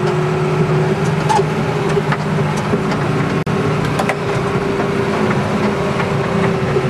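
Steady drone of a combine harvester's engine and running threshing gear, heard from inside the cab while harvesting.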